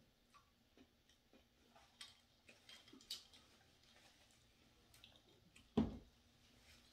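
Quiet table sounds from eating: scattered light clicks of a metal spoon against a small bowl and small mouth sounds, then a single thump nearly six seconds in as a drinking glass is set down on the table.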